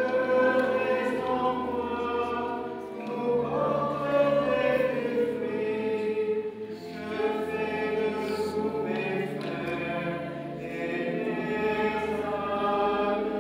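Many voices singing a slow hymn together, in phrases of a few seconds with long held notes.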